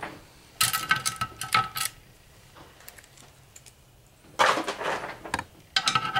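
Loose steel rollers from a transfer case's blind bearing clinking and jangling as they are fished out with a magnet and dropped: a spell of bright metallic clinks about a second in, a rougher rattle a little after the middle, and more clinks near the end.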